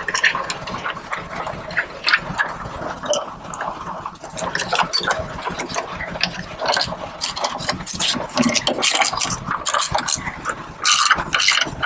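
Flange bolts being tightened into the skid plate's nut inserts with a small motor-driven tool, its motor whirring amid irregular clicks and clatter of metal hardware.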